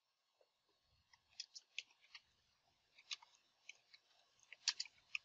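Computer keyboard being typed on: a dozen or so faint, sharp key clicks in an irregular run.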